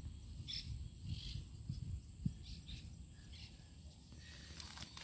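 Faint outdoor ambience: a steady high insect drone, low rumble on the microphone, and a few short chirps, with light scuffing clicks near the end.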